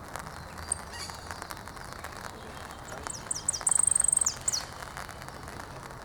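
A male saffron finch sings one short high phrase a few seconds in: several sharp down-slurred notes, a rapid trill, then two more down-slurred notes.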